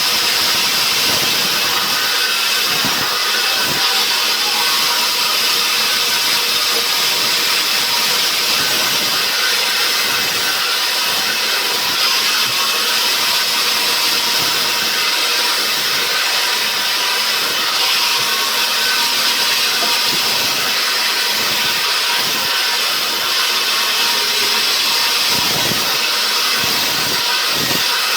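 Sawmill saw cutting lengthwise through a debarked pine log, a steady hissing noise with machinery running underneath.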